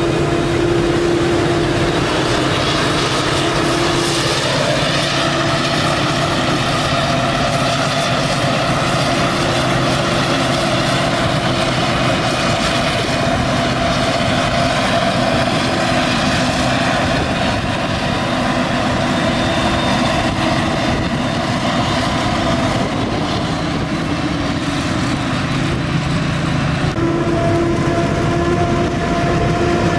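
Claas Jaguar 950 self-propelled forage harvester chopping maize, its engine and chopper running with a steady humming drone and several held tones, with a tractor running alongside. The pitch of the hum shifts about 4 seconds in and again near the end.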